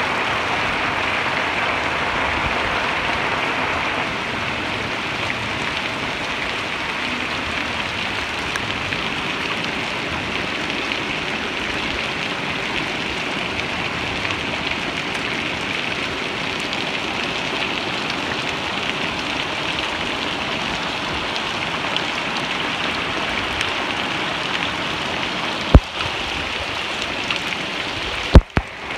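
Heavy rain pouring steadily onto the ground, leaves and plant pots, an even hiss of many drops. A sharp click about three seconds before the end and two more near the end.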